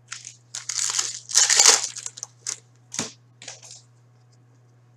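Trading-card pack wrapper being torn open and crinkled by hand: crinkly rips in the first two seconds, then a few short crackles as the pack is handled.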